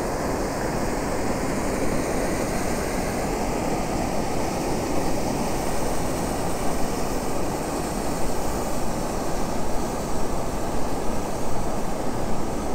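Steady rushing of the Schießentümpel waterfall and the Black Ernz river below it, a dense even wash of water noise.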